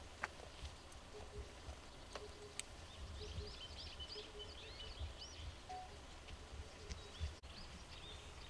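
Small birds chirping and twittering faintly, a busy run of short high notes about three seconds in, over a low outdoor rumble.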